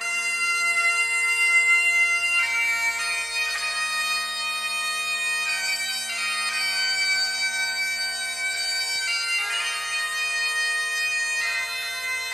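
Bagpipe music: a slow melody of long held notes played over steady drones.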